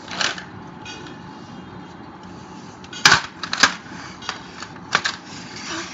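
Hard plastic toy pieces being handled, knocking and clacking together in a few sharp clatters, the loudest two about three seconds in, half a second apart.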